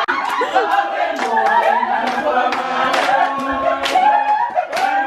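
Many voices singing together in a group, with a few voices talking over it.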